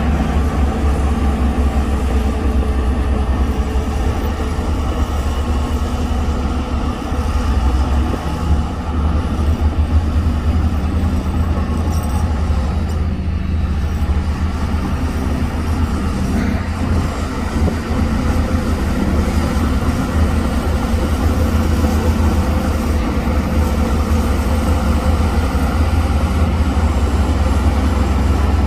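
Diesel engine of heavy earthmoving machinery running steadily with a deep rumble, its tone shifting a little around the middle.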